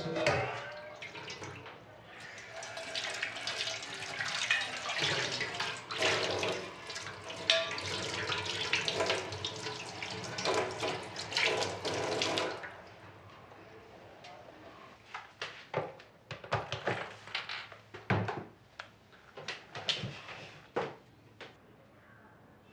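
Kitchen tap running into a steel sink while dishes are washed, with frequent clinks of steel plates and utensils. About halfway through the water cuts off, leaving scattered clinks and knocks of dishes being handled and set down.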